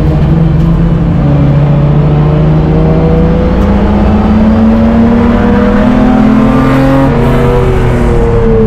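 BMW E30 race car's straight-six engine pulling hard under load, heard from inside the stripped cabin, its pitch climbing slowly, then dropping sharply about seven seconds in before climbing again.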